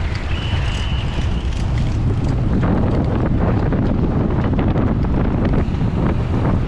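Heavy wind buffeting the microphone of a camera riding along on a racing bicycle at speed: a loud, steady rumbling rush. A brief steady high tone sounds in the first second.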